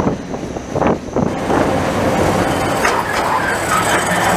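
Train running noise with rumbling thumps, heard at an open carriage window. It gets denser and louder about a second and a half in, and high squealing tones join in over the last second or so as an MÁV M47-class diesel locomotive passes close by on the next track.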